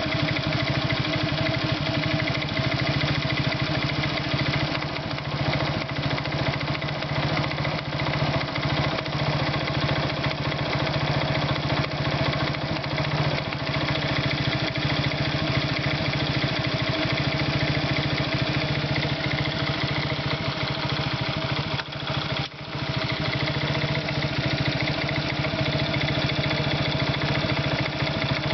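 Irbis Virago 110 moped's 110 cc single-cylinder four-stroke engine idling steadily, with a knock in the engine. The engine briefly dips about three-quarters of the way through.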